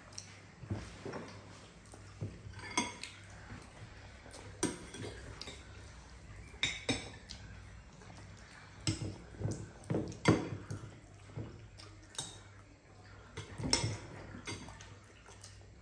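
Metal spoons clinking and scraping against bowls as rice is scooped up, in irregular sharp clinks, a dozen or so, some close together.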